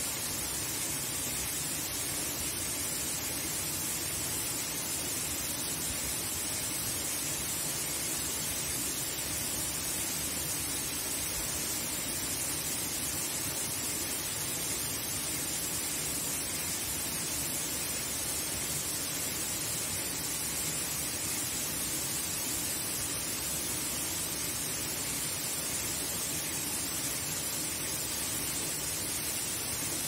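Thin waterfall falling down a rock face into a pool: a steady, even rush of water with a strong high hiss.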